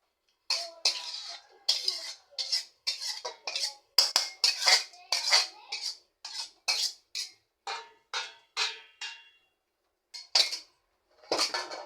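Metal utensil scraping and clinking against cookware in a quick run of strokes, about two a second. The strokes pause for a moment, then two more come near the end.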